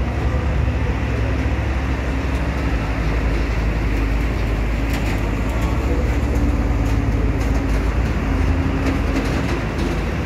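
Heavy cargo truck driving past close by, its engine running over a steady low rumble.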